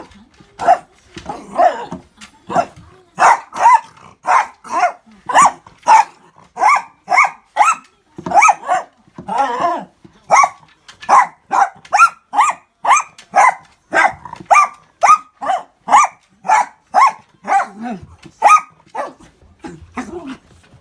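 Miniature dachshund puppy barking over and over, short high-pitched yaps about two a second, thinning out near the end.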